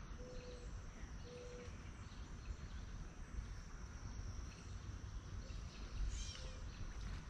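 Outdoor summer ambience: a steady high insect drone over a low rumble, with two short, flat whistled bird notes in the first two seconds, a faint third near five seconds, and a brief high bird chirp about six seconds in.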